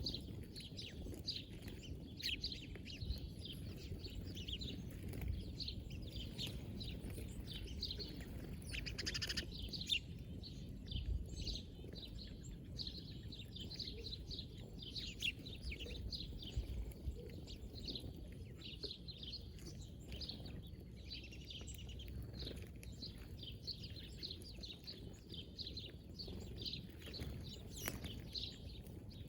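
Wild birds chirping and calling: a busy run of short chirps all through, over a steady low background rumble.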